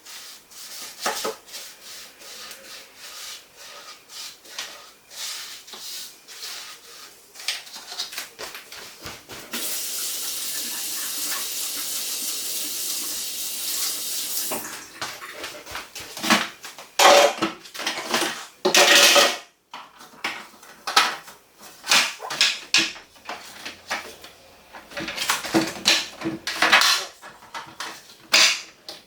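Dishes and containers clattering and knocking as they are handled, with a steady hiss lasting about five seconds near the middle and a run of louder knocks a few seconds later.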